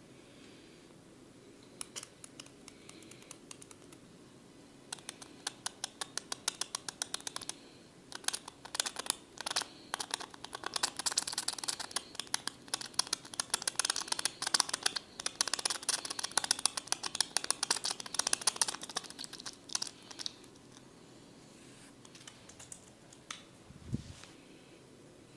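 Rapid, dense clicking and crackling from a barber's hands working on a client's head during a massage. It starts with a few scattered clicks, thickens from about five seconds in, and dies away near the end, followed by one short low thump.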